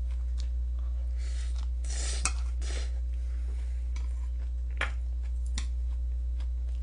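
Metal spoon scraping and clinking in a stainless steel bowl of bibimbap, with a few sharp clinks scattered through, the loudest about two seconds in and near the five-second mark. A steady low hum runs underneath.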